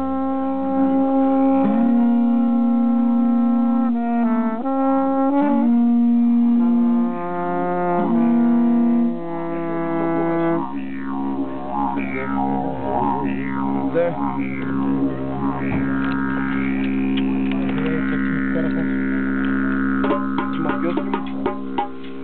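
Didgeridoos and a horn-like tube warming up together. During the first half, held horn-like notes step up and down in pitch. After that comes a steady didgeridoo drone with vowel-like sweeps over it, and near the end a run of quick darbuka taps.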